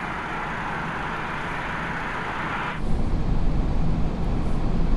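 Airbus A380's Rolls-Royce Trent 900 jet engines heard from the ground as the airliner comes in on final approach: a steady, even rush of jet noise. About three seconds in it cuts off to the low rumble of airflow and engines inside the flight deck.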